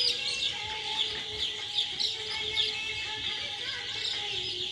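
A crowd of young chicks peeping continuously, a dense chorus of short, high, falling chirps overlapping one another.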